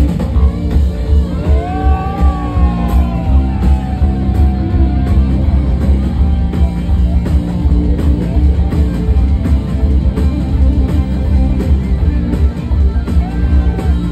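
A rock band playing loud music: heavy bass and drum kit with a steady beat under guitar. About a second and a half in, a lead line slides up and then slowly falls away.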